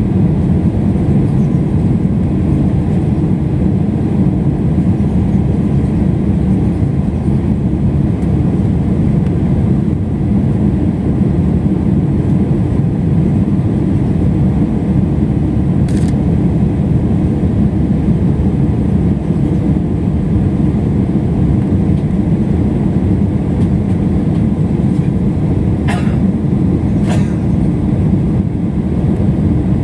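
Steady cabin noise of a jet airliner climbing after takeoff: the underwing turbofan engines and rushing air, heavy and low. A faint click about halfway through and two more near the end.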